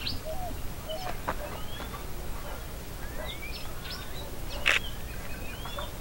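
A feeding flock of wild birds, mostly red-cowled cardinals, chirping with many short calls and rising whistled notes, with one sharper, louder sound about three-quarters of the way through.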